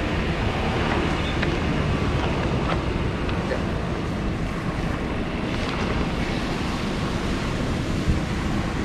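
Wind buffeting the microphone, a steady low rumbling, with a few faint crinkles from a plastic ground tarp being spread out on grass.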